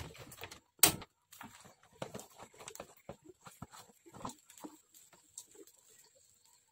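Scattered clicks and knocks of kitchen utensils and containers being handled, with one sharp knock about a second in.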